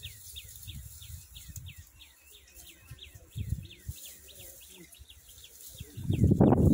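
A bird calling a rapid series of short downward-sliding chirps, about four a second, over faint rustling. A loud low rumbling noise comes in near the end.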